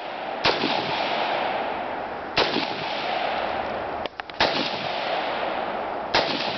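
AR-15 rifle fired in four single shots, about two seconds apart. A steady rushing noise fills the gaps between the shots.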